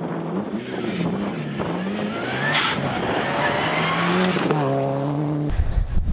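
Subaru Impreza rally car's flat-four engine revving up and down hard through the gears as it slides on gravel, with a sharp crack about two and a half seconds in. Near the end it cuts to a low, heavy rumble as a Mitsubishi Lancer rally car approaches.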